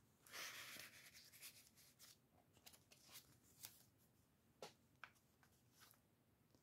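Faint rustle of paper pages and cards being handled, strongest in the first second, then a few soft paper ticks and taps.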